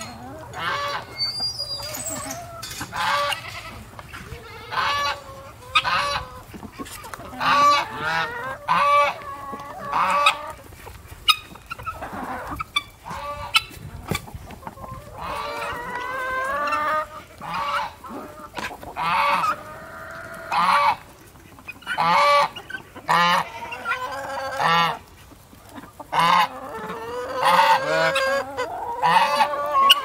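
Mixed flock of chickens and guinea fowl calling: short loud calls one after another throughout, with clucking between them.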